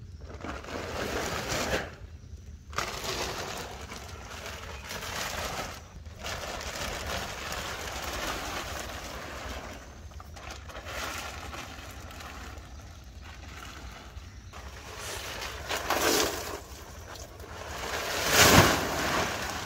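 Large plastic sheeting rustling and crinkling as it is handled and pulled off mud ovens, with short pauses. The loudest rustles come near the end as a sheet is dragged off.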